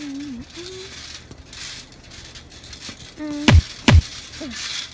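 Two loud, deep thumps about half a second apart, a little over three seconds in, from two boys sparring in boxing gloves on a trampoline. Short vocal sounds come just before and after the thumps.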